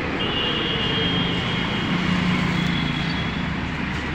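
Traffic on a busy street: a steady noise of passing cars and motorbikes, with a thin high-pitched tone that sounds for about three seconds.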